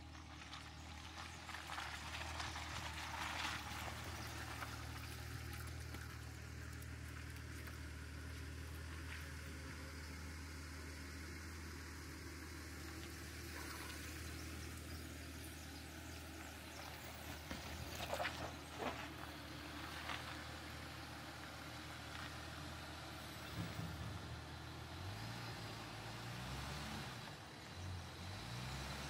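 Jeep Gladiator crawling slowly over a rough off-road trail: the engine runs low and steady, with a few short knocks and rattles from the truck. Near the end the engine speed rises and falls.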